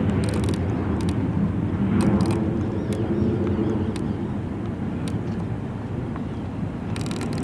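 Steady low rumble of a New York City Subway train running across a trestle, heard from afar, with scattered faint clicks.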